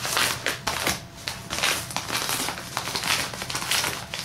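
Shipping packaging being torn open and crumpled by hand: a series of irregular crinkling rustles.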